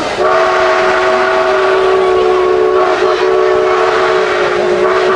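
Steam locomotive whistle blowing one long blast of several notes at once, lasting about five seconds. It starts just after a brief gap following an earlier blast.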